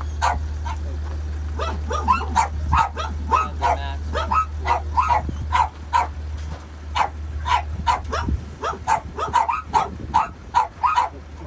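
Dogs in travel crates barking and yipping repeatedly, about two or three barks a second, over a steady low hum that stops about eight seconds in.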